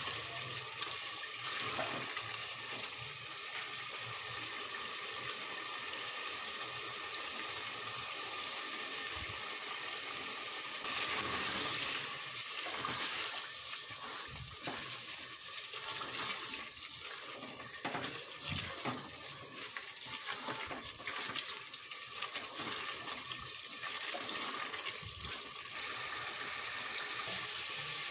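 Mutton curry sizzling in an open pressure cooker pot as it is stirred with a silicone spatula: a steady frying hiss, with scrapes and knocks of the spatula against the pot that come more often in the second half.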